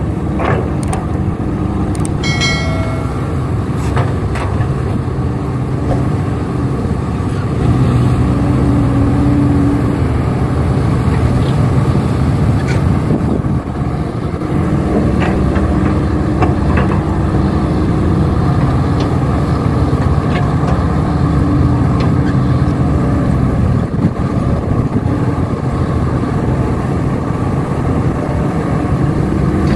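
Heavy diesel engines of an excavator and dump truck running steadily under load, with occasional clanks and a brief high-pitched tone about two seconds in.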